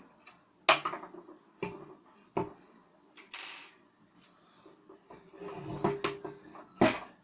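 Metal ceiling-fan parts and hand tools being handled during dismantling of the fan's motor base: a run of sharp clinks and knocks, with a short scrape a little before the middle.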